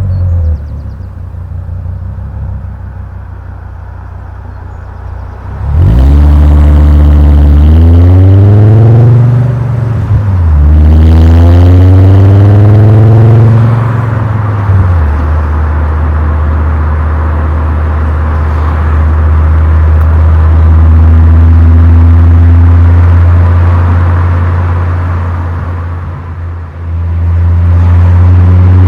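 Volkswagen Golf Mk4 VR5's 2.3-litre five-cylinder engine and exhaust, heard while driving. It runs quietly at first, then about six seconds in pulls hard with rising pitch through two gears, dropping briefly at the shift. It then eases off into a steady loud drone at cruise and dips briefly near the end.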